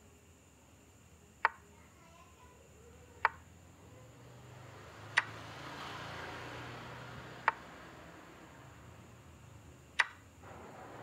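Chess app's move sound effect: five sharp clicks a couple of seconds apart, one for each piece moved on the board, over faint background hiss.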